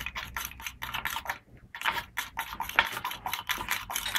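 Metal spoon stirring a thick sodium bentonite slurry with raw salt mixed in, inside a small beaker: quick repeated scraping strokes against the beaker, several a second, with a brief pause partway through.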